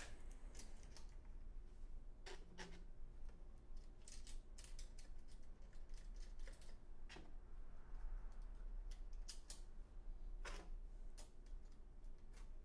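Faint, irregular light metallic clicks and taps of an Allen key and small screws being fitted and turned snug.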